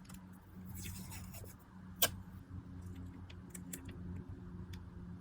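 A piece of tape being pulled off and handled for paper crafting: a short rasp about a second in, a sharp click about two seconds in and light ticks, over a steady low hum.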